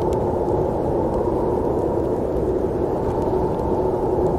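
Steady, muffled snowstorm wind: an even low rushing noise with no gusts or changes.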